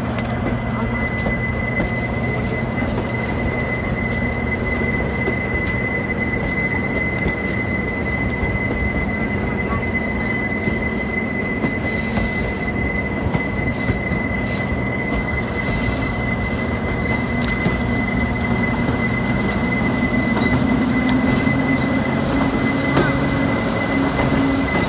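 Narrow-gauge passenger train's wheels squealing steadily against the rail as it rounds a tight curve, a single sustained high tone over the low rumble of the running cars. Sharp clicks join in from about halfway through.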